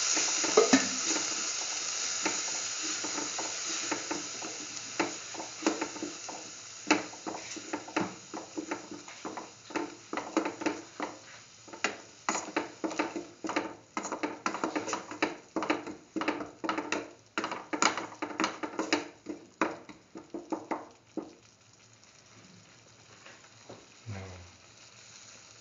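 A cooking utensil stirring a thick onion-and-spice paste in a hot pan. The sizzle is loudest at first and fades over several seconds, under a run of quick scrapes and taps on the pan that stop about twenty seconds in.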